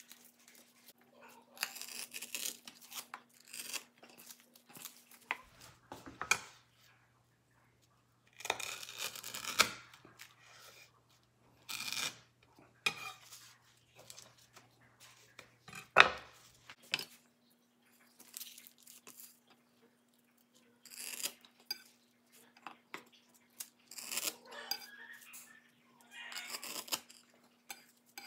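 Crisp sheets of toasted nori crackling and tearing as they are folded by hand, with a chef's knife cutting through them and knocking on a bamboo cutting board. The loudest is a single sharp knock about halfway.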